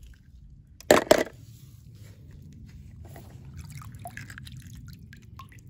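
Pool water splashing and dripping as a wet toy car is lifted out of a pool skimmer net: a short, loud splash about a second in, then faint trickling and drips.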